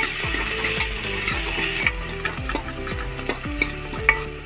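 Chopped onions frying in hot oil in a pressure cooker, sizzling while a steel ladle stirs and scrapes them with light clinks against the metal base. The sizzle is stronger for the first couple of seconds, then eases.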